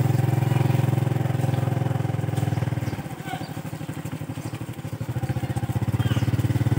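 Small motorcycle engine running at low speed with a steady, fast pulsing note; it eases off about three seconds in and picks up again about two seconds later.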